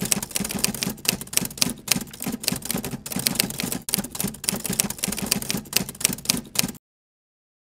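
Typewriter-style typing sound effect: a rapid, irregular run of keystroke clacks that cuts off suddenly near the end.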